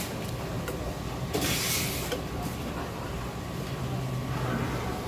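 Steady low machine hum of a fish-market shop, with a short burst of hiss about a second and a half in and a few faint clicks.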